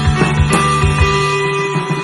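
Background music with guitar over a steady beat; the low beat drops out near the end.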